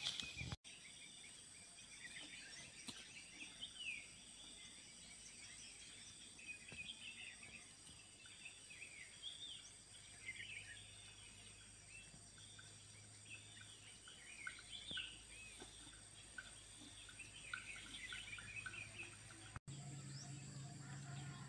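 Outdoor ambience of many small birds chirping in short scattered calls over a steady high insect drone.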